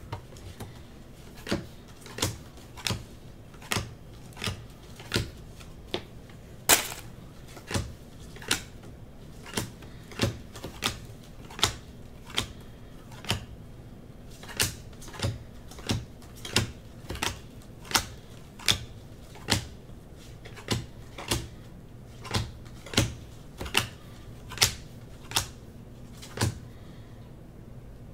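Football trading cards being flipped one by one through a hand-held stack, each card giving a short sharp snap, a little more than once a second at an uneven pace.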